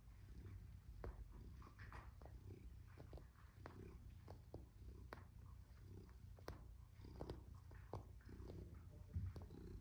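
Domestic shorthair cat purring softly while kneading a fleece-lined cat bed, with faint irregular clicks as its paws work the fabric.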